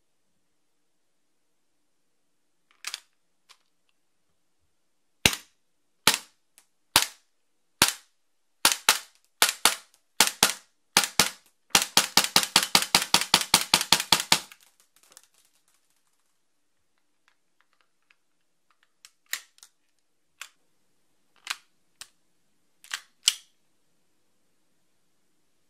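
FNX-45 Tactical gas blowback airsoft pistol with a mock suppressor firing, each shot a sharp crack with the slide's blowback clack. The shots start about a second apart, speed up into a fast string of roughly eight a second for a couple of seconds, and after a pause come back as a few quieter, spaced shots.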